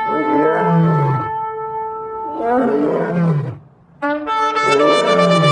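Shofar (ram's horn) blasts: long, steady horn notes with a deeper, wavering sound layered beneath. The blast breaks off briefly just before 4 seconds in, and a new one starts with a quick rise in pitch.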